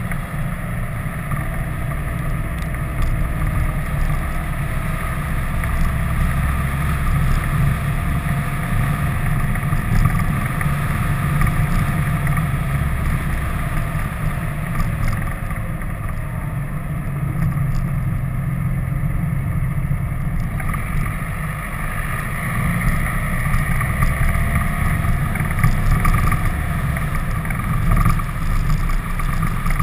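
A vehicle driving on a winding mountain road: steady low rumble of engine, tyres and wind buffeting the camera's microphone, with a faint engine note that rises and falls through the bends.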